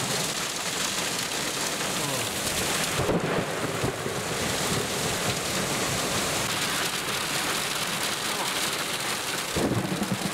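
Torrential rain and hail from a supercell's core pelting a car's roof and windows, heard from inside the cabin, with 100 km/h wind gusts. A dense, steady downpour that surges louder about three seconds in and again near the end.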